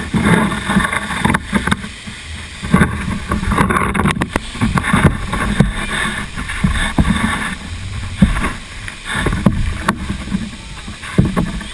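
Turbulent waterfall water splashing and churning against a GoPro camera, with irregular knocks and thumps throughout.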